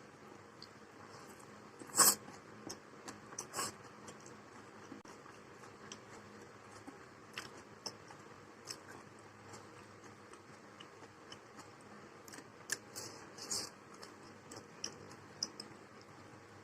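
Someone eating: faint chewing with scattered small clicks and taps, the loudest about two seconds in.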